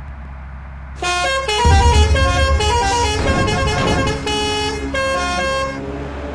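A bus's musical horn sounding a run of stepped tones like a short tune, over a steady low engine hum. The tones start about a second in and stop near the end.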